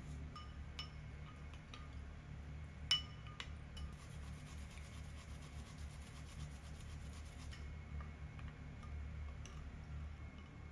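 Kitchen prep sounds: a utensil clinking lightly against a glass or ceramic dish several times, the sharpest clink about three seconds in, with quiet rubbing and scraping in between, over a low steady hum.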